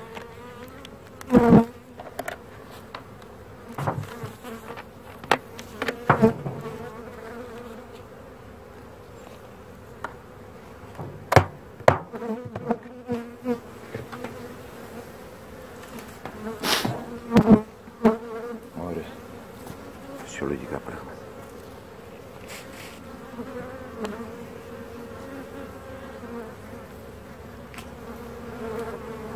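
Honeybees buzzing around an opened hive, a steady hum, broken by sharp knocks as the hive lid and wooden frames are handled, the loudest a little over a second in and again around the middle.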